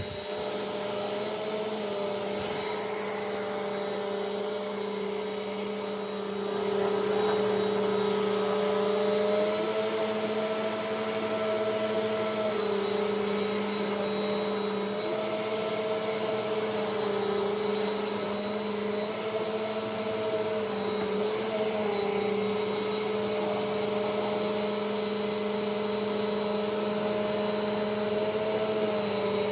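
Eureka AirSpeed NEU100 upright vacuum cleaner running while vacuuming. Its motor whine holds steady, with the pitch shifting slightly up and down every few seconds as the cleaner is worked.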